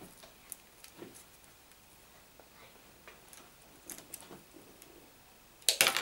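A hand wire stripper working the plastic sheath of a flat telephone cable: scattered small clicks and faint plastic rustling, then a loud sharp crackle near the end as the tool bites and the sheath is pulled.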